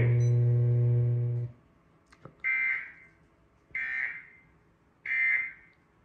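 A steady low electrical hum cuts off about a second and a half in, followed by three short, harsh data bursts about 1.3 seconds apart: the Emergency Alert System end-of-message (EOM) tones that close a warning broadcast, played through a TV's speaker.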